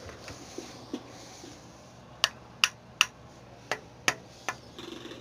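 A run of six sharp clicks over about two and a half seconds, after two fainter knocks; a low steady hum comes in near the end.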